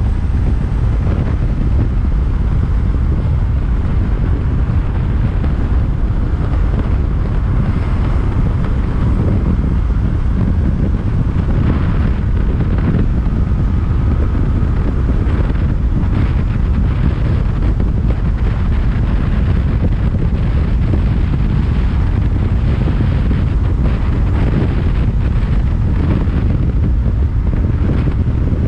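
Loud, steady wind noise buffeting the microphone of a motorcycle being ridden, with no distinct engine note coming through.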